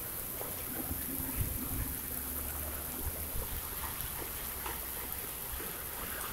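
Steady rain and wind from a tropical storm: an even hiss with scattered small drips and taps.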